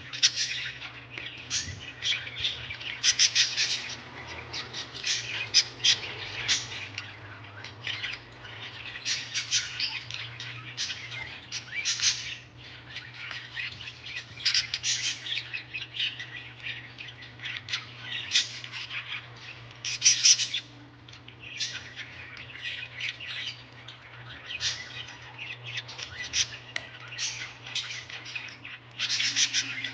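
Small birds chirping and squawking in quick, continuous chatter, over a steady low hum.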